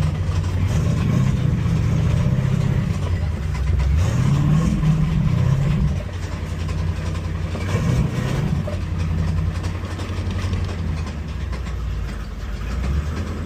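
Ford 4.6 V8 engine running, rising in pitch about four seconds in and dropping back near six seconds. The owner is pretty sure the engine has a spun rod bearing from running low on oil.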